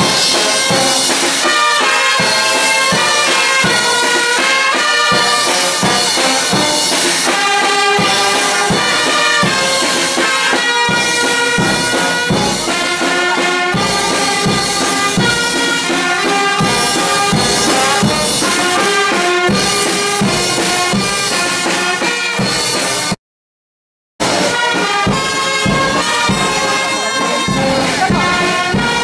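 Music: a reedy wind instrument plays a melody over drum beats. It cuts out completely for about a second about 23 seconds in.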